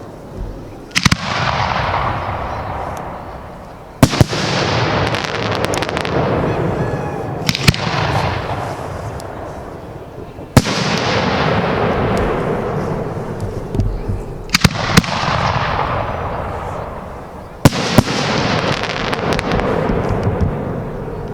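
Aerial fireworks bursting in a display, six sharp bangs about every three to four seconds. Each bang is followed by a long hiss that fades away before the next.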